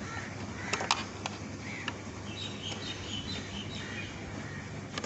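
A few light clicks as compressor wire terminals are pushed onto an inverter AC control board, over steady background noise with faint bird chirps in the middle.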